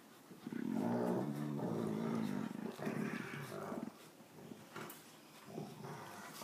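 A dog growling: a long, low grumbling growl of about three seconds, then a short growl near the end.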